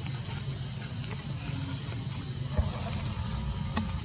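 Insects in the forest trees making a steady, high-pitched drone without a break, over a low rumble.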